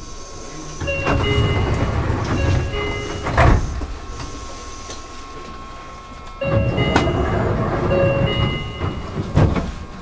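Meitetsu electric train running, a low rumble with steady whining tones over it, louder in two spells: about a second in and again just past the middle.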